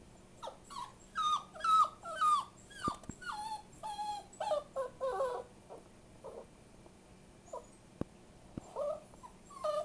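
Young puppy whimpering: a quick run of short, high-pitched cries that each drop in pitch, dying down about six seconds in and coming back briefly near the end. The owner takes the crying for the puppy missing its mother.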